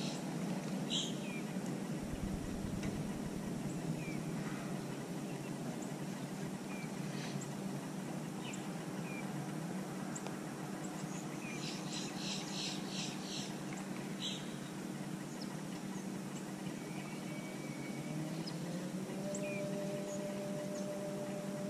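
Scattered short bird chirps and calls, including a quick run of about six notes around the middle, over a steady low mechanical hum. Near the end the hum rises in pitch and then holds steady.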